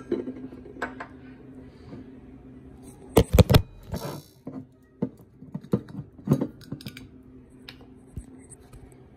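Clatter of bottles and caps being handled on a kitchen countertop: scattered clicks and knocks, with a loud cluster of knocks a little over three seconds in.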